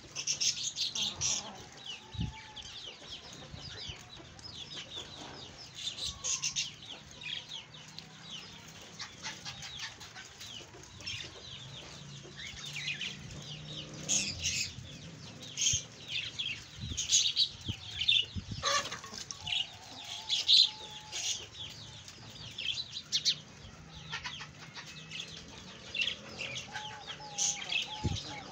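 Aseel chickens clucking and calling as they peck at feed, with frequent short, sharp high sounds and a few longer drawn-out calls, one about two-thirds of the way in and one near the end.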